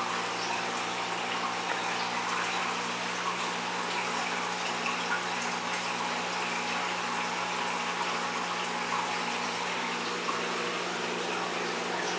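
Aquarium water circulation running steadily: an even rush of moving water, likely from the filter return, over a steady low hum.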